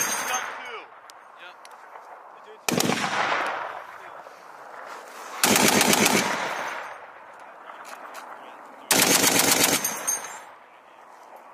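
Browning M2 .50-calibre heavy machine gun firing short bursts: three bursts about three seconds apart, each a rapid string of heavy shots followed by a rolling echo that fades before the next.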